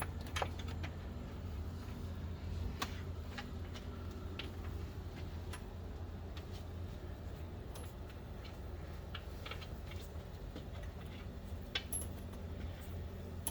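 Scattered small metallic clicks and clinks of nuts and washers being handled and turned onto bolts, over a steady low hum.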